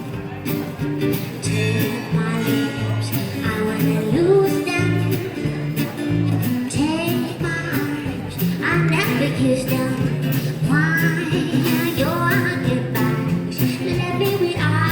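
A song with a sung melody over a steady beat and bass.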